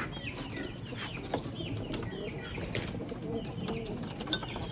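Mixed backyard bird calls: pigeons cooing and chickens clucking, with many short high chirps throughout and a couple of sharp knocks.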